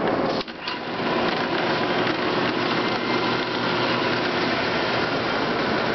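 Electric drive motor of a 50 lb Moloch power hammer running steadily, turning the belt and flywheel while the ram stands idle with no blows struck. The sound drops briefly about half a second in, then resumes evenly.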